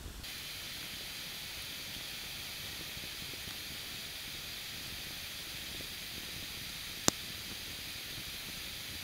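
Moisture boiling out of the end grain of a hardwood log in a campfire, giving a steady steaming hiss, with one sharp pop from the fire about seven seconds in.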